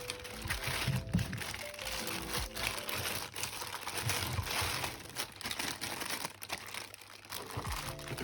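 Plastic packaging crinkling and rustling as it is handled, with scattered small clicks and knocks, over background music.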